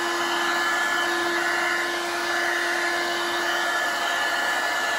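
Handheld hair dryer running steadily, blowing hot air, with a low motor hum and a thin high whine over the rush of air.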